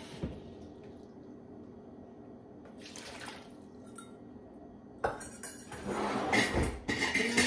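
A kitchen tap stops running, with a single knock just after. After a quiet spell, pots and utensils clatter irregularly from about five seconds in, getting louder.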